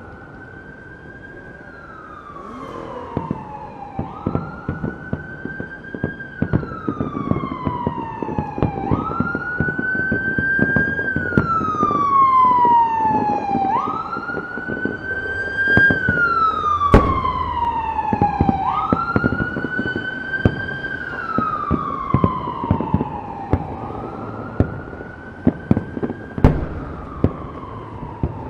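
A siren wailing, each cycle rising quickly and then falling slowly, repeating about every five seconds, over a scatter of firework pops and crackles. Two sharper firework bangs stand out, one about two-thirds of the way through and one near the end.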